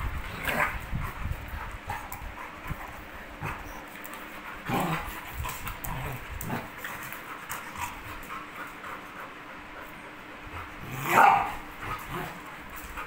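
An adult dog and a puppy play-fighting, not biting hard: short growls and yips with scuffling, and one louder yip about eleven seconds in.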